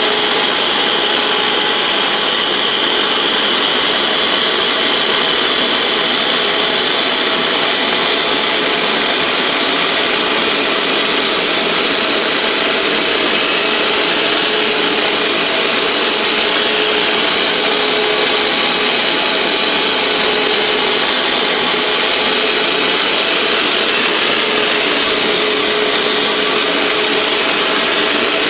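Hoover SteamVac SpinScrub carpet cleaner running steadily on carpet: a loud, even suction rush with a steady motor whine.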